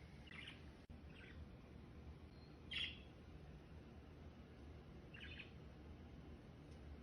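Near silence over a low steady hum, broken by four short, faint chirps, the loudest a little under three seconds in.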